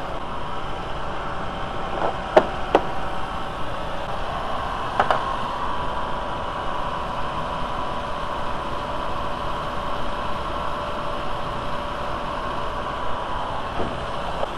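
Car engine idling steadily under an open hood, a steady hum with a couple of faint clicks in the first few seconds.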